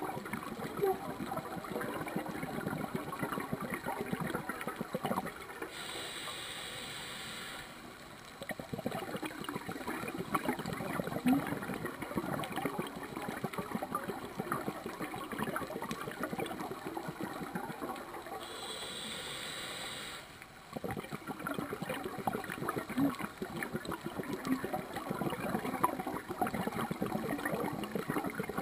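Scuba diver's regulator breathing underwater: exhaled bubbles gurgling and crackling, broken twice by the hiss of an inhalation, about 12 seconds apart.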